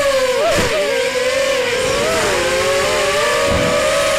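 ZMR250 racing quadcopter's T-Motor 1806 brushless motors and 5-inch propellers whining in flight, several close tones rising and falling with the throttle. About half a second in the pitch drops sharply and wobbles, then the motor tones split apart and settle to a steady whine.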